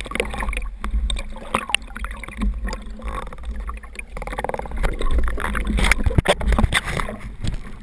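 Water churning and bubbling around an underwater camera's waterproof housing as a spearfisher moves at the surface, heard as a steady low rumble with many scattered clicks and knocks.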